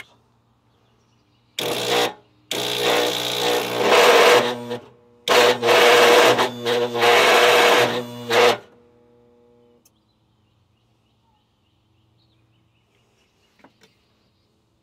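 The Agway GT 1846 garden tractor's electric starter cranking the engine on a 200 amp jump-pack boost: three tries, a short one and then two of about two and three seconds. The engine does not catch.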